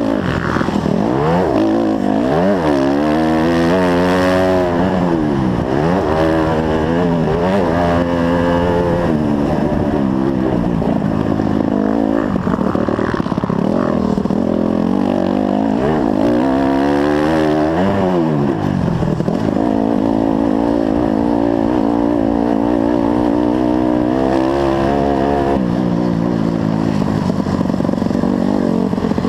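Dirt bike engine heard up close from the bike itself, revving up and dropping back over and over as the rider accelerates, shifts and backs off, then running at a steadier pitch near the end.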